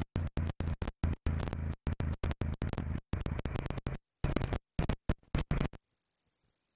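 Electronic music chopped into rapid stuttering bursts, about four a second, with dead silence between them. It cuts off about six seconds in, leaving only a faint hiss.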